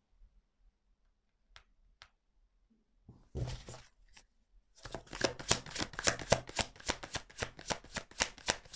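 A deck of tarot cards being shuffled by hand. Two faint clicks come first, then a brief rustle about three seconds in, and from about five seconds in a run of quick, even strokes of cards slipping against each other, about four a second.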